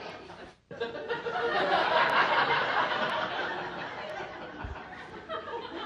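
Audience laughing. The laughter swells to a peak about two seconds in, then dies away.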